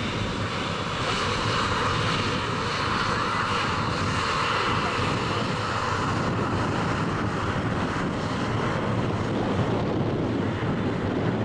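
Twin Rolls-Royce AE 3007 turbofans of an Embraer ERJ regional jet at take-off thrust, a steady rushing jet noise as the aircraft lifts off and climbs out.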